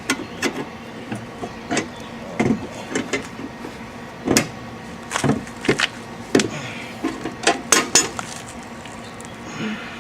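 Car jack being worked to raise the car: irregular metallic clicks and clanks, about one or two a second.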